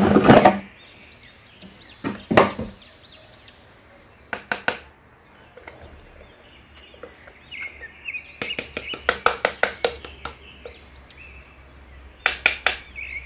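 A cardboard toy box and a hard plastic toy figure being handled: scattered knocks, scrapes and rustles, with a quick run of clicks a little past the middle.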